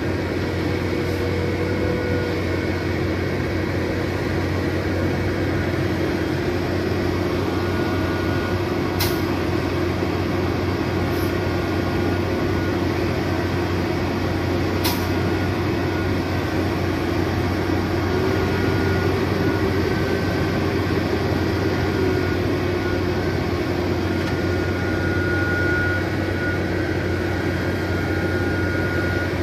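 Heavy diesel engine running steadily at a concrete pour, a constant drone that rises slightly for a few seconds past the middle. A few sharp clicks sound over it.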